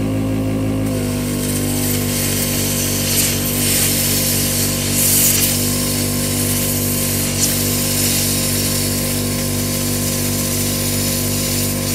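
Plasma cutter with a built-in air compressor cutting a steel plate. The compressor's steady hum runs under the hiss of the air-plasma arc, and the hiss picks up about a second in as the cut gets going.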